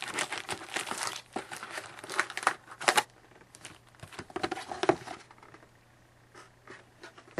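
Plastic and foil trading-card packaging crinkling and tearing as the box and packs are opened, busiest in the first three seconds and thinning to a few scattered rustles and clicks, over a faint steady low hum.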